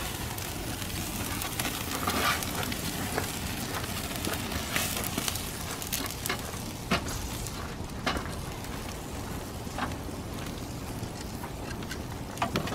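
Steaks sizzling over a charcoal fire in a kettle grill: a steady hiss with scattered sharp crackles and pops from the burning coals.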